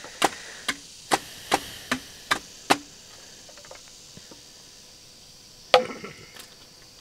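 Repeated sharp blows of a hand tool on a building site, about two to three a second, stopping about three seconds in; one louder single blow comes near the end.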